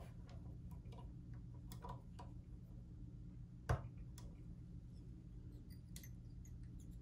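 Faint, scattered small clicks and taps of fly-tying tools being handled at the vise, with one sharper click a little past halfway, over a steady low hum.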